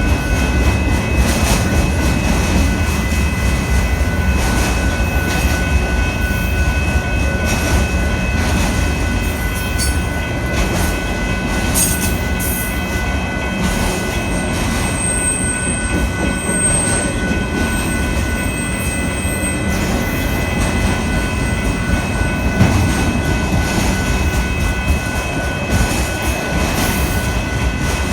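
Union Pacific autorack freight train rolling past, a steady rumble of cars and wheels with thin, steady high-pitched wheel squeal over it.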